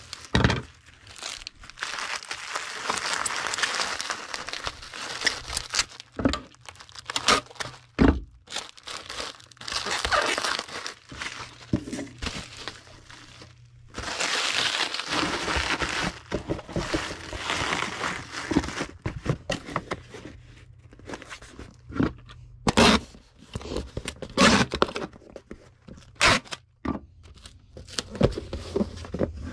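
Packing material being crumpled and crinkled while a small item is packed into a cardboard shipping box, in several long rustling stretches broken by short sharp knocks of the box being handled.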